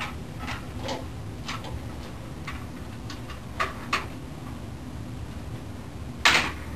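Irregular light knocks and taps of a toddler climbing up onto a crib's rail, with a louder double knock near the end.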